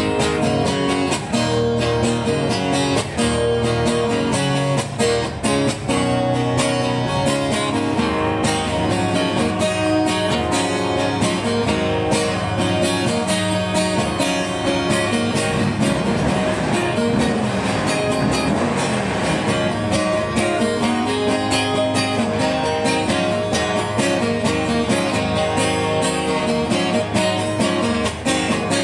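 Acoustic-electric guitar strummed in a steady rhythm of chords, amplified through a PA.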